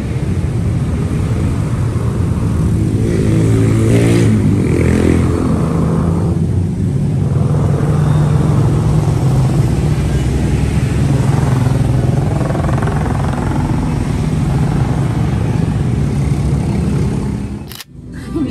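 Road traffic dominated by motorcycle engines, one passing loudly about four seconds in, then a steady engine rumble; it breaks off abruptly near the end.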